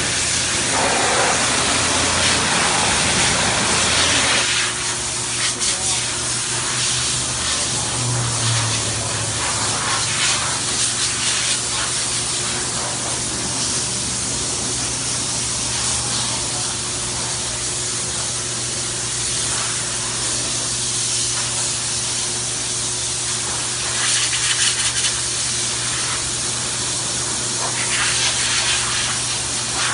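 Pressure washer running, its motor humming steadily under the hiss of the water jet spraying onto a car's body panel. The spray is strongest for the first four seconds or so, then the hiss settles to a steadier, slightly quieter level.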